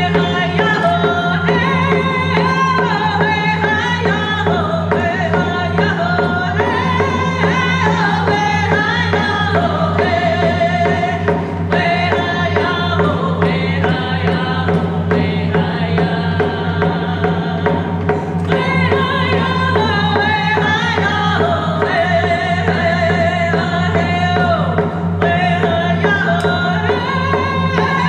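Native American grand entry song: women's voices singing together over a steady beat on frame hand drums struck with padded sticks.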